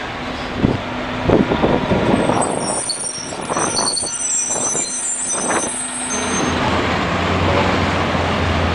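RTS transit bus driving past close by, engine running, with a high air hiss from its brakes for a few seconds in the middle and some knocks and clunks from the body. About six seconds in the sound changes to a steady low engine drone from another bus.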